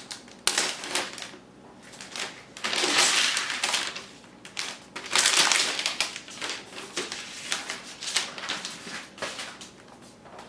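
Thin protective plastic wrap being pulled off a laptop, crinkling and rustling in several bursts, the loudest about three and five seconds in.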